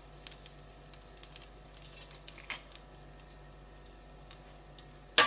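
Light, scattered ticks and clicks of a salt-and-pepper shaker being shaken over an egg in an iron appam pan, with one sharper click just after five seconds.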